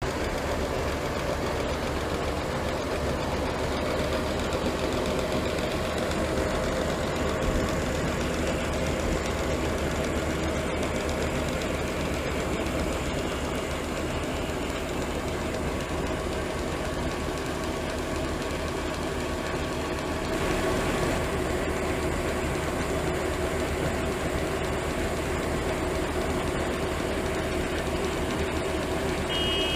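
Tractor-powered AGRAR ex-bag silo-bag unloader running steadily, its auger conveying stored grain out of the bag and up the spout into a trailer, with the tractor engine running under load. The machine note shifts slightly about two-thirds of the way through.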